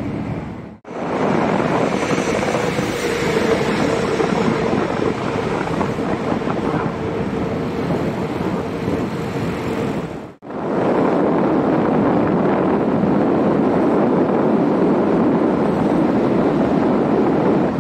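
Steady rush of wind and road noise from a 125 cc scooter riding through a long concrete road tunnel, echoing off the walls, with a faint steady hum through the first half. The sound cuts out briefly twice, under a second in and about ten seconds in.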